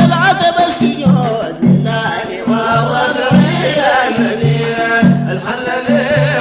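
Sudanese madeeh, a Sufi praise song for the Prophet: singing with wavering melodic lines over a steady, repeating drum beat.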